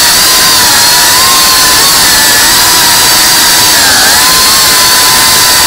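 FPV racing quadcopter's electric motors and propellers whining at speed, a high whine over heavy hiss that wavers with throttle and dips briefly about four seconds in. It is picked up loud and harsh by the drone's own onboard camera.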